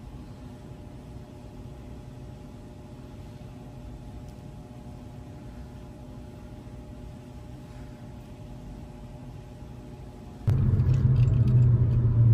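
Faint steady room hum, then about ten seconds in a sudden switch to the loud low rumble of a car heard from inside its cabin.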